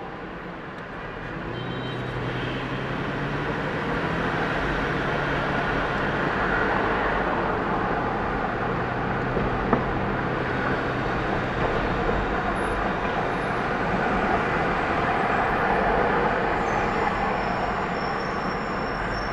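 Steady road and traffic noise from a car driving through city streets, growing louder over the first few seconds, with a low engine drone under it for much of the time and one brief click near the middle.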